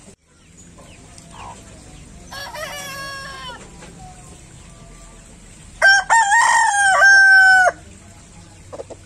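Rooster crowing: a fainter crow about two seconds in, then a loud, close crow about six seconds in that lasts nearly two seconds. A few short clucks follow near the end.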